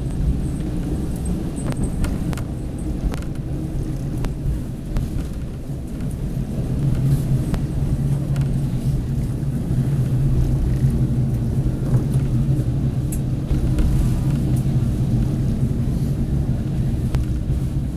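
KiHa 40 diesel railcar heard from inside the passenger cabin while running: a steady diesel engine drone over the rumble of wheels on rail, the engine note growing louder about six seconds in, with scattered short clicks.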